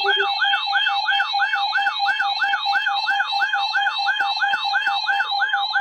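Electronic siren-like alert tone on an emergency weather broadcast: a quick warble rising and falling about three to four times a second over a steady pulsing beep. A lower pulsing tone under it drops out just after the start.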